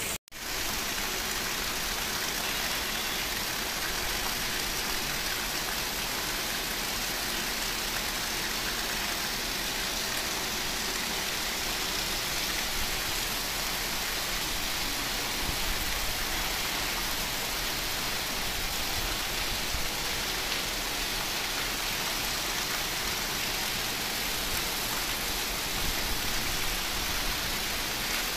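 Heavy rain falling as a steady, even hiss, with a momentary cut-out of the sound just after the start.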